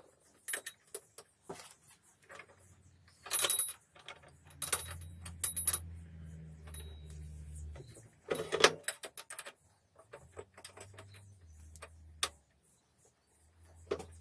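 Metal clutch parts clinking and knocking as they are handled and seated between the jaws of a steel bench vise, a few knocks ringing sharply. A low hum comes and goes behind them.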